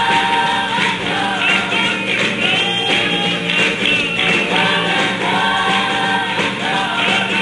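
Church congregation singing a gospel song together, many voices at once.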